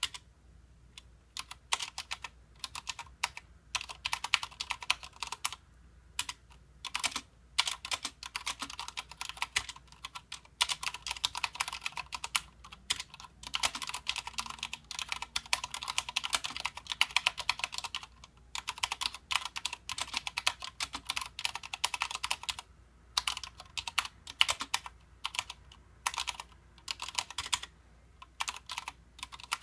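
Typing on a Mistel MD870 Sleeker mechanical keyboard with Cherry MX Red linear switches: fast runs of keystrokes in bursts, broken by short pauses.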